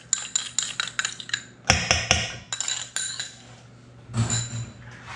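A utensil clinking and scraping against dishes, a run of quick taps with a louder clatter about two seconds in and a few duller knocks near the end: minced garlic being tapped and scraped out of its dish into the mixing bowl.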